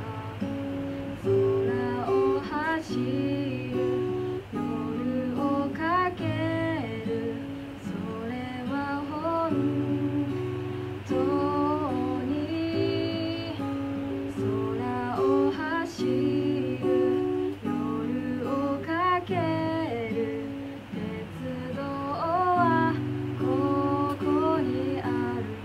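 Acoustic guitar played steadily, chords and picked notes, with a voice singing the melody over it.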